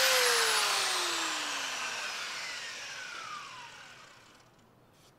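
Electric belt sander switched off and spinning down: its motor whine falls steadily in pitch and fades out over about four seconds.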